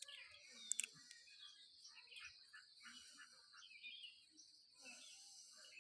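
Faint bird chirps over a steady high hiss, with two sharp clicks a little under a second in.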